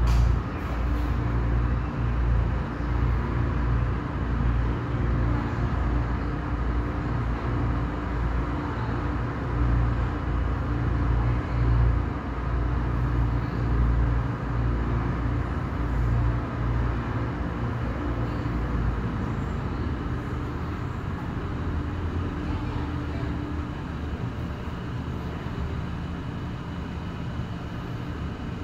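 Automatic car wash heard from inside the car's cabin: water spray hitting the body and windows over a steady low rumble, growing a little quieter over the last several seconds.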